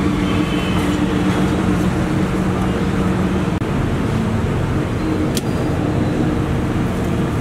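Steady traffic noise with a running engine's hum, loud and unbroken, and one sharp click about five seconds in.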